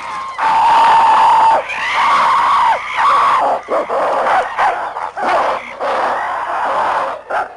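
A troop of apes screaming and shrieking in a threat display, many calls overlapping. A long held scream about a second in is the loudest, followed by rapid, bending cries that break off and start again.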